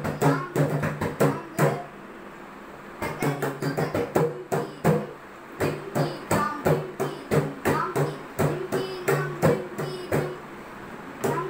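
Mridangam played with the hands: quick phrases of sharp strokes, the right head ringing with a clear pitched tone after each. The strokes break off briefly about two seconds in, then start again.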